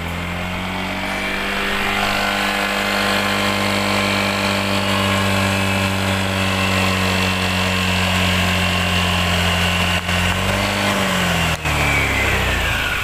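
Honda Click 125i scooter's single-cylinder engine running steadily, wavering briefly and falling in pitch near the end. The rough, ugly note is what the rider calls 'dragging', which he puts down to the engine and CVT being chilled by the rain and expects to go away once it warms up.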